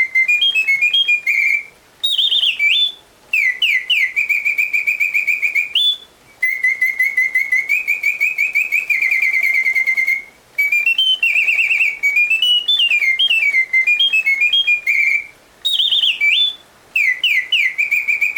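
Reuge singing-bird cage automaton playing its mechanical birdsong: a bellows-blown whistle sliding up and down, with fast warbling trills and held twittering runs. The song stops briefly four times, every four to five seconds.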